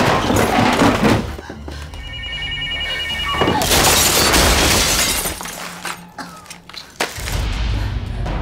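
A violent struggle with scuffling and knocks. About two seconds in, a telephone bell rings briefly. Then comes a long crash of things breaking, and a sharp bang near the end, followed by low, tense music.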